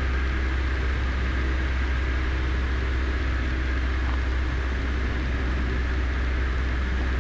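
Cessna 152's four-cylinder Lycoming O-235 engine and propeller droning steadily under power on short final, heard inside the small cabin with a steady rush of hiss over it.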